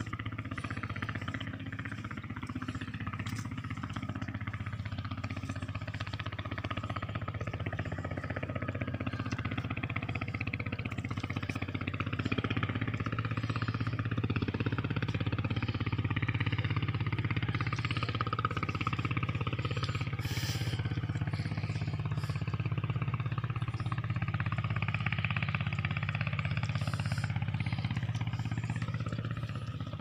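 Steady low engine hum, running on without a break and a little louder from about twelve seconds in, with faint crackles over it.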